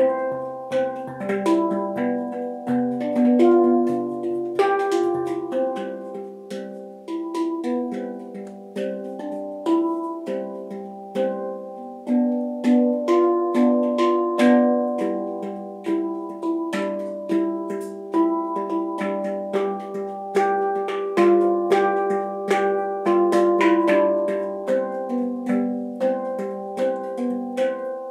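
Boreal handpan by PANacea Sonora, tuned in C major, played with the fingertips: a steady flow of struck notes, each opening with a light tap and ringing on so that the notes overlap into a melody.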